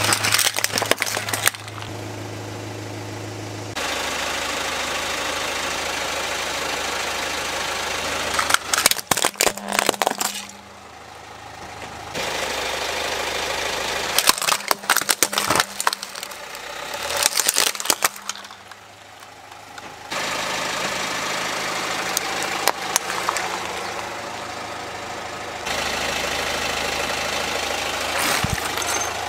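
Car engine idling as a tyre rolls over and crushes plastic toys, with three bursts of cracking and crunching: about a third of the way in, around halfway, and shortly after. The steady background changes abruptly several times between clips.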